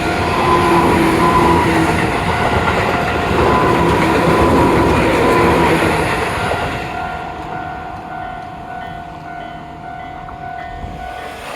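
A Tobu Tojo Line train running past a railway level crossing, loud at first, then fading away about seven seconds in. A steady high tone carries on after the train noise drops.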